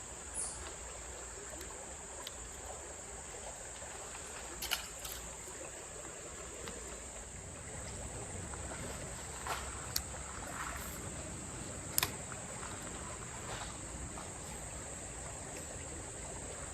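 Steady high-pitched drone of insects in summer vegetation, over a low even hiss of outdoor noise, with a few short sharp clicks about five, ten and twelve seconds in.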